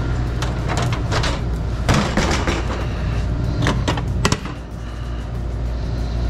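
Metal clattering and knocks as a Polin deck oven's steel loader and oven door are handled, over a steady low machine hum. A sharp metal clank about four seconds in is the loudest.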